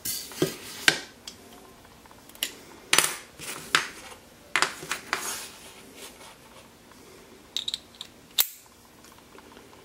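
Steel screwdriver bits clicking and clattering in a scatter of separate sharp ticks as they are picked up off a table and fitted into the hollow stem of a multi-bit screwdriver.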